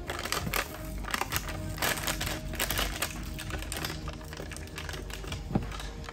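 Dry loose-leaf tea leaves pouring and trickling from a foil bag into a plastic jar, a dense crackly rustle with the bag crinkling as it is shaken.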